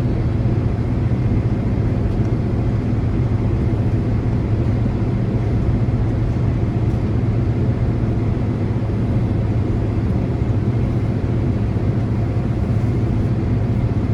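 Steady cabin noise inside a Boeing 767 taxiing after landing: the engines are running at idle, with a constant low hum under an even rush of air.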